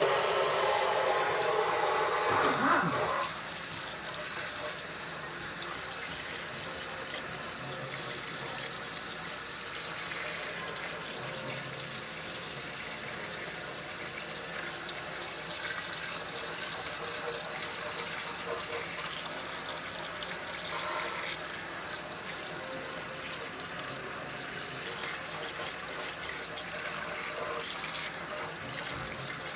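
Water running from a tap into a sink in a steady stream, heavier for the first few seconds and then even.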